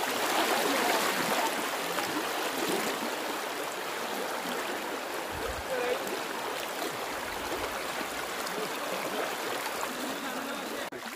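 Floodwater rushing steadily in a fast current across flooded fields, with a continuous even rush that breaks off shortly before the end.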